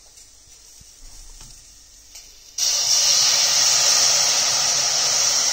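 Vegetable stock poured from a plastic jug into a hot stainless-steel pot of fried onions, spices and potatoes. A loud, steady hiss starts suddenly about two and a half seconds in as the liquid hits the hot pan.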